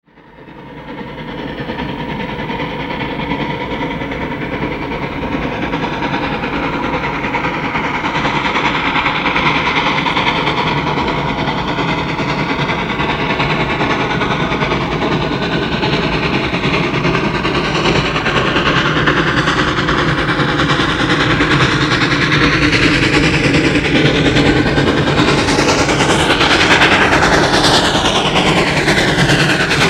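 Chicago and North Western 1385, a 4-6-0 steam locomotive, working hard up a grade: a dense, heavy exhaust that fades in over the first second or two and grows louder as the engine draws nearer.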